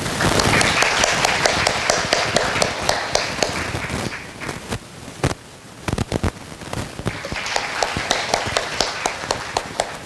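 Audience applauding. The clapping dies down about four seconds in, a few scattered claps carry on, and then it swells again near the end.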